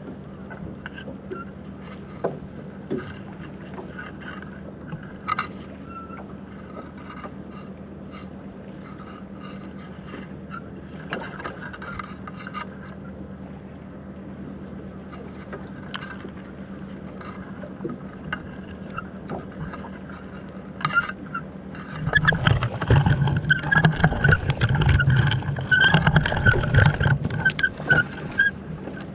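Muffled sound recorded by a submerged camera: a steady low hum with scattered faint clicks. About 22 seconds in, a louder rough, churning stretch lasts some six seconds and then stops.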